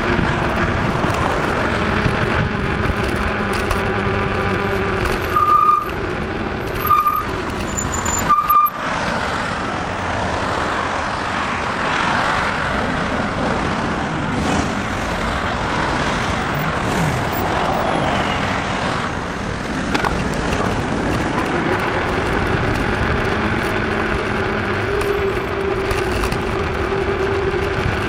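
Bicycle tyres humming on asphalt while riding, under steady road and traffic noise. Three short high beeps come a little over a second apart, about five to nine seconds in.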